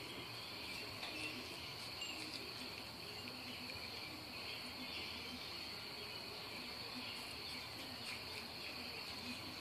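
Steady high-pitched trilling of night insects such as crickets, continuous throughout, with a few faint soft ticks.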